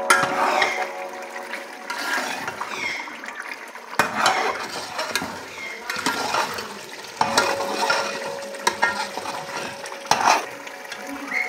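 Steel ladle stirring and scraping beef mince in an aluminium pot, with irregular knocks against the pot, over the wet sizzle of the mince as its yogurt liquid cooks down.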